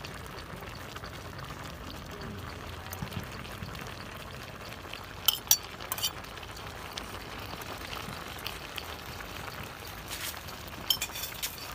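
Pot of eel soup bubbling steadily at the boil under a topping of glass noodles, with a few sharp clinks about five to six seconds in and again near the end as the ceramic plate knocks against the rim of the aluminium pot.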